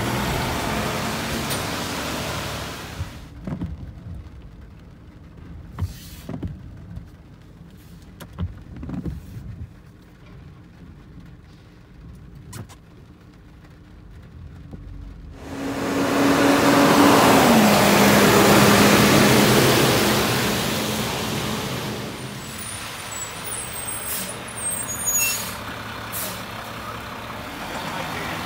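Mack garbage truck with a side-loading body, its engine and hydraulics running loudly at the start and again from about halfway, when a steady hum drops a step in pitch. Between these is a quieter stretch with scattered clicks and knocks.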